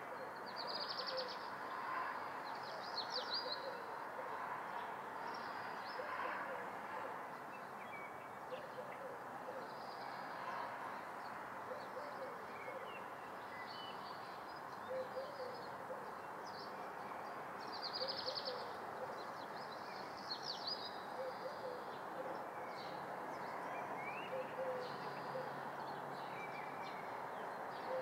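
Summer-morning room ambience: birds outside chirping and giving short rapid trills several times, with short low calls repeating, over a steady background hush.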